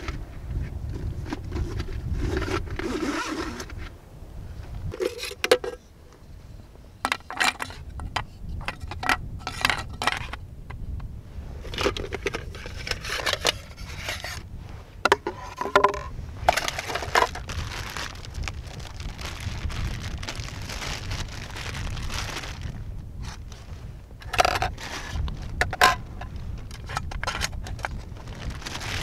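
Aluminium parts of a Trangia 27 storm cooker clinking and scraping against each other and on rock as the stove is unpacked and assembled: scattered sharp clicks and clatters with handling noise between them. A steady low wind rumble on the microphone runs underneath.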